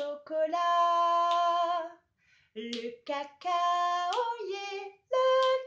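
A woman singing unaccompanied in French: a long held note, a short break about two seconds in, then the sung word "chocolat" ending on a held note that slides upward.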